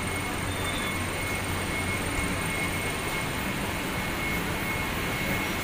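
Steady ambient din of a crowded market street: a constant low hum and hiss with a faint, steady high-pitched whine mixed in.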